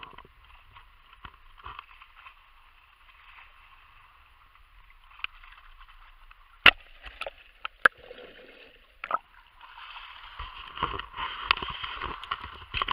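Water sloshing and lapping close around the camera at the surface, with a few sharp knocks from the camera being handled about two-thirds of the way through. The water noise grows louder near the end.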